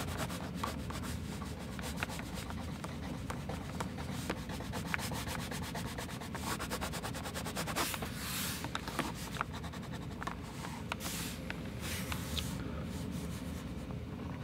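China marker scribbling back and forth on drawing paper, hatching in a dark tone: a steady dry scratching rub dotted with many small ticks of the waxy tip on the paper.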